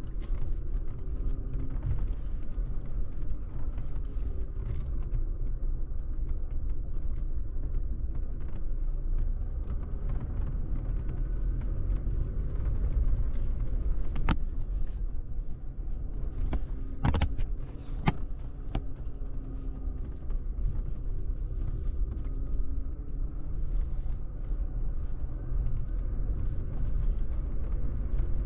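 Toyota Tacoma pickup driven slowly over a rutted dirt forest track, heard from inside the cab: a steady low rumble of engine and tyres, with knocks and creaks from the truck as it rides over bumps. There is a cluster of sharp knocks just past the middle.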